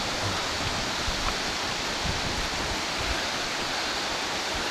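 Steady rush of fast-flowing, rain-swollen water from the stream below Torc Waterfall.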